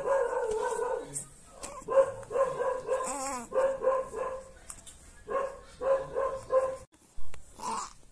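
Young baby cooing: a string of short, high 'ah' sounds, a longer one at the start and a wavering one about three seconds in.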